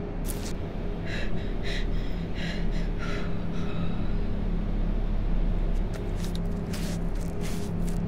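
A person gasping for breath in a run of short, sharp, breathy gasps that come in two bouts, over a steady low droning hum.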